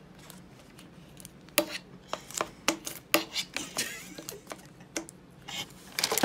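Irregular sharp taps and knocks of small hands slapping and handling things on a hard tabletop, starting about a second and a half in, with a few louder knocks near the end.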